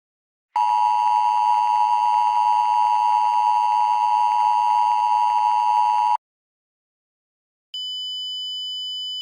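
Emergency Alert System two-tone attention signal: a loud, steady, buzzy alarm tone that starts about half a second in and holds for about five and a half seconds before cutting off. After a short gap, a quieter steady high tone starts near the end.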